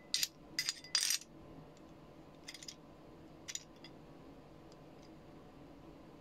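Metal clinks and clicks from a chrome right-angle drill adapter and its bit being handled: a quick run of sharp clinks in the first second, two more about two and a half and three and a half seconds in, then a few faint ticks.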